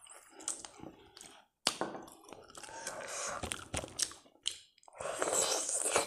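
Close-up eating sounds of rice and pickle gravy eaten by hand: wet chewing and irregular lip smacks and clicks, with a sharp smack just under two seconds in.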